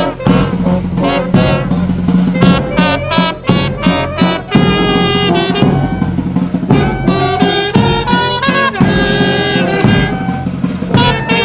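Brass band playing a tune, with trumpets and horns carrying the melody over a steady bass line from tubas or sousaphones.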